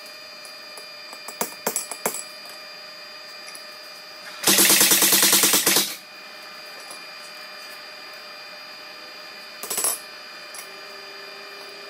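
Forging a hot steel blade: a few ringing hammer blows on the anvil, then a loud, rapid run of about ten blows a second for more than a second, typical of a power hammer, and near the end a couple more anvil strikes, all over a steady machine hum.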